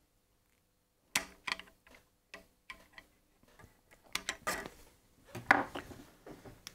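Handling noise as a part from the circuit board is turned in gloved hands: an irregular string of light clicks and small knocks starting about a second in, with two longer rustling bursts near the end, the second the loudest.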